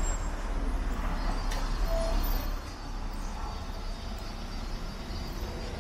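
Outdoor city street ambience: a steady low rumble of traffic that softens about two and a half seconds in.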